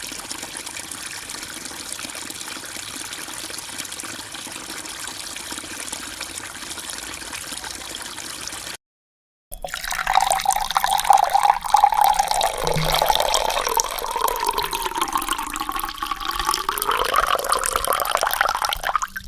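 Two water sound effects in turn. First an even, steady rush of running water. Then, after a brief silence about nine seconds in, a louder, splashier stream of pouring or flowing water whose tone dips and rises again.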